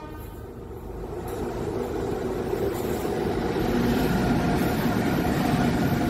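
Goods train hauled by two electric locomotives approaching and passing close by: the rumble of wheels on rails swells over the first few seconds, and a steady hum from the locomotives comes in as they draw level.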